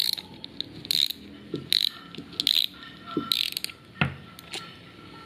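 Front drag knob of an Okuma Altera ultralight spinning reel being unscrewed, its drag clicker ratcheting in about five short bursts. A single knock about four seconds in.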